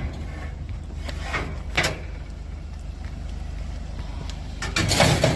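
A vehicle engine idling with a steady low rumble, with a few short knocks and a louder clatter about five seconds in.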